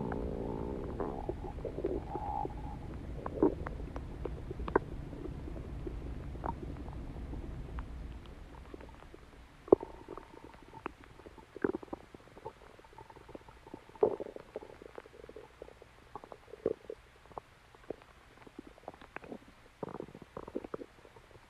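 Human stomach growling and gurgling. For the first eight seconds or so it is a continuous rumble with squeaky growl tones, which then gives way to quieter, scattered gurgles and pops.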